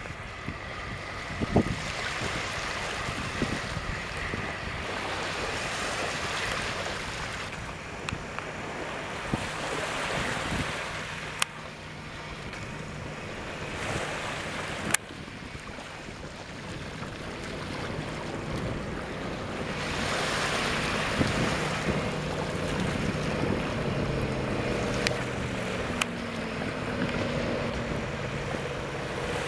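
Wakeboard boat's engine running as it passes at speed across the water, its low hum growing clearer in the last third, under heavy wind noise on the microphone and the wash of water. A few sharp clicks stand out briefly.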